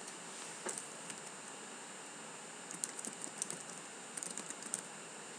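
Faint typing on a computer keyboard: a lone keystroke just under a second in, then two quick runs of keystrokes, about three seconds in and again near the end.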